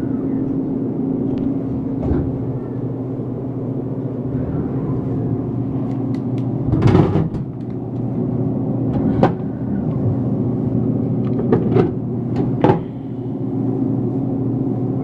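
Touchscreen Pepsi vending machine's delivery mechanism running with a steady motor hum as it retrieves a purchased drink, with several knocks and clunks about halfway through and again later as the drink is picked up and delivered.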